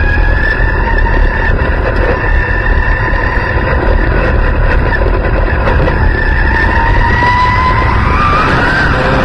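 Dirt-track race car's engine running loud under light throttle as the car picks up speed, heard from inside the cockpit with a deep rumble, rushing noise and a whine that slowly rises in pitch, with a short quicker rise and fall near the end.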